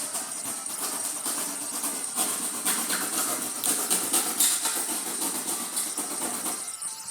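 Utility knife slicing through cardboard: a continuous scratchy rasping made of many quick strokes, most intense in the middle.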